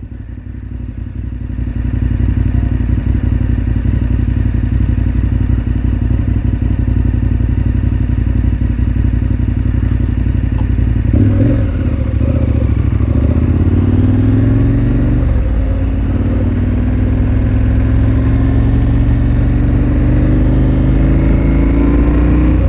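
KTM 1290 Super Adventure R's V-twin, fitted with an Akrapovič slip-on exhaust, idling at a stop and then, about eleven seconds in, pulling away and accelerating up through the gears, its pitch climbing with each gear. The slip-on makes it sound beefy.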